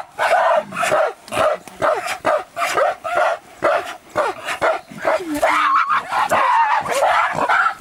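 A group of gorillas squabbling: rapid short calls, about three a second, with one longer, lower call about five seconds in.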